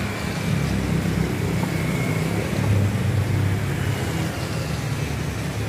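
Motorbike engines passing on a wet street over an even hiss, with a low engine rumble that grows louder about three seconds in.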